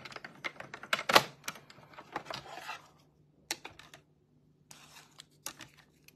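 Hand-cranked die-cutting machine rolling a sandwich of cutting plates through, a quick run of clicks and knocks with one loud knock about a second in. After a short pause, sharper scattered clicks and rustling as the plastic cutting plates are handled and pulled apart.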